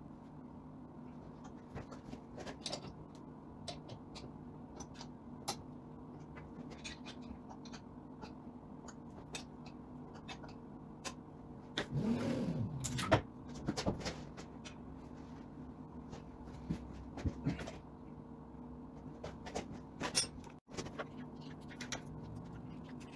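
Hand assembly work on a Shapeoko Pro CNC router's aluminium frame: scattered light clicks and taps of tools and hardware as the Y-rail bolts are tightened, over a steady low hum. About twelve seconds in there is a louder, longer scrape with a wavering squeak as the gantry is handled.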